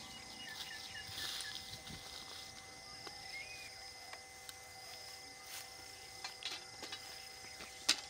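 Open-field ambience with a steady high insect chirring, scattered short chirps and a few sharp clicks; the loudest click comes just before the end.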